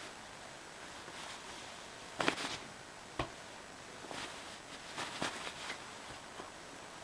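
Pillowcase and bedding rustling in several short bursts as a cat paws and grabs at an arm inside the pillowcase; the loudest rustle comes a little over two seconds in, with a brief sharp tap about three seconds in.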